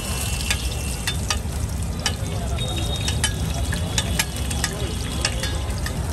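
Food frying and sizzling in a pan, with a spatula tapping and scraping against it many times.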